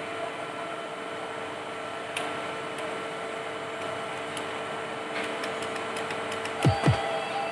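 Steady hum with light clicks of a contactor's plastic housing parts being handled and fitted together. Near the end come two quick thuds that sweep down in pitch.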